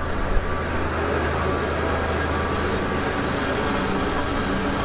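MÁV class M62 diesel locomotive's two-stroke V12 engine running as the locomotive passes, a steady low drone. A higher hum joins in near the end.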